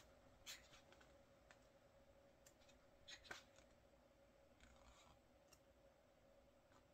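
Faint rustles of thick photobook pages turned by hand, a few brief ones over near silence.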